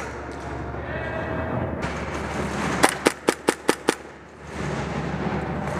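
Airsoft gun firing a quick string of about six shots, a little under three seconds in, over steady background noise.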